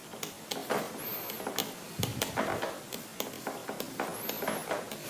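Black pen writing: scratchy strokes and small taps of the pen tip on the writing surface, with two brief high squeaks, about a second in and near the end.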